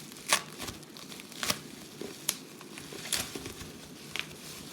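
Plastic packaging crinkling in the hands, a few separate sharp crackles a second or so apart, as slime containers wrapped in bubble wrap are handled.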